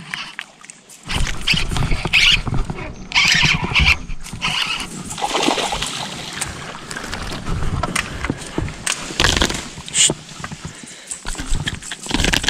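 A hooked fish thrashing and splashing in irregular bursts as it fights the line.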